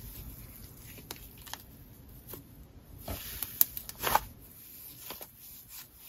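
Wet icee slime packed with snow being squished by hand: scattered crackly sizzles and small pops, with a louder cluster of crackles about three to four seconds in.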